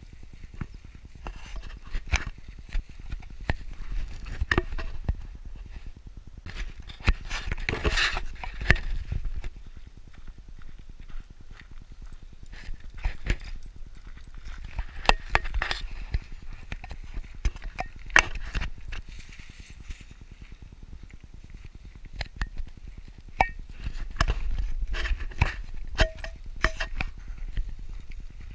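Footsteps on a dirt trail: a quick, uneven run of scuffs and knocks over a low rumble, mixed with handling noise on the action camera.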